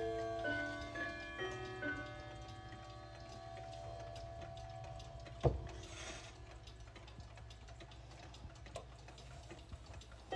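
Hamilton Headmaster wall clock: the last notes of its chime ring and die away over the first two seconds, then the movement ticks steadily. A single sharp knock with a brief ring comes about five and a half seconds in, and a new chime sequence starts right at the end as the minute hand is moved forward to the next quarter.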